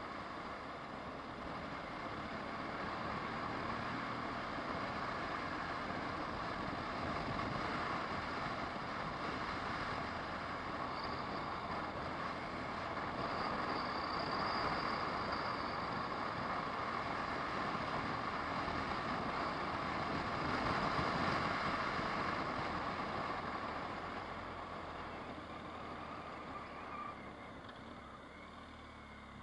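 Car driving along a winding road, heard from inside the cabin: steady engine and tyre noise that grows louder to about twenty seconds in, then eases off as the car slows near the end.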